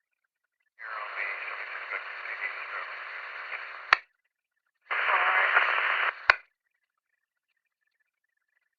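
Police radio heard on a scanner: two transmissions keyed up with hiss and no clear words, one about three seconds long and the next about a second and a half. Each is cut off by a sharp squelch click as the radio closes.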